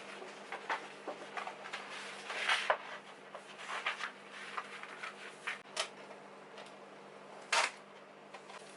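Objects being handled by hand: irregular light clicks, taps and rustling for several seconds, then a sharper single click near the end.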